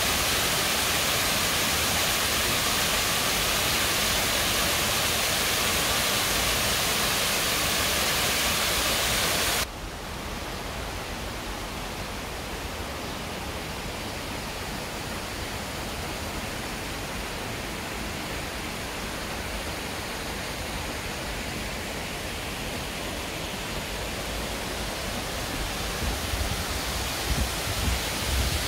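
Rushing stream water, a steady loud hiss that cuts abruptly about a third of the way in to a quieter flow of water, with a low rumble building near the end.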